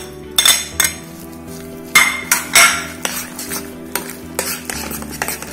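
Steel spoon clinking and scraping against a plate and the rim of a glass bowl as chopped shallots, green chillies and herbs are scraped into urad dal batter, with a run of sharp clinks in the first three seconds. Then fainter knocks and rubbing as the batter is mixed by hand in the glass bowl.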